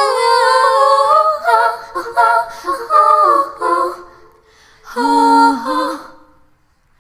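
A woman singing wordless 'la la' notes unaccompanied, slow and drawn out. The singing breaks off about four seconds in, comes back for one short phrase, then fades away near the end.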